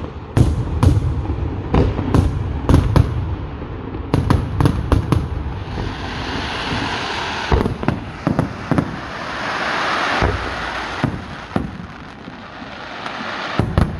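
Fireworks display: aerial shells going off in quick succession as a string of sharp bangs and booms, with a rushing hiss in the middle stretch before the bangs pick up again.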